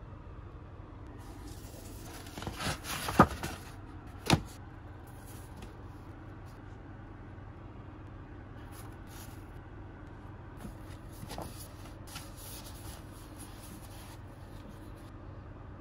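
Paper and cardboard packaging being handled: rustling of leaflets and booklets, with two sharp knocks about three and four seconds in, over a steady low background hum.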